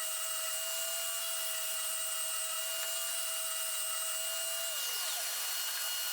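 Electric sander running steadily on wood, a motor whine over the hiss of fine 320-grit sanding. It is switched off near the end, and its pitch falls as it spins down.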